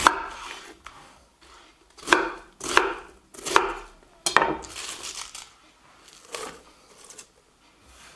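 Chef's knife chopping white cabbage on a wooden cutting board: a series of sharp, unevenly spaced knocks of the blade through the cabbage onto the board, growing fainter in the second half.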